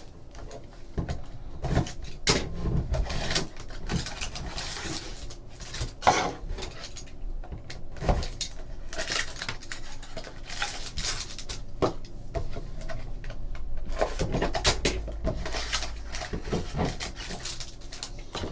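Trading card packs and their cardboard box being handled: a string of irregular taps, clicks and rustles as packs are pulled out and set down one by one.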